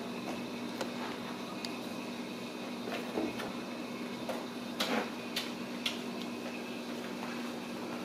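Kittens playing on and around a cardboard scratcher and a foil-covered tube on a tile floor: scattered light knocks, scrapes and rustles, several close together around the middle, over a steady low room hum.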